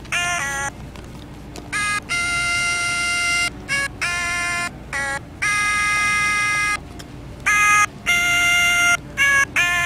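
Sing-a-ma-jig plush toys singing: a run of held, electronic-sounding sung notes, each lasting about half a second to a second and a half, with short gaps between them.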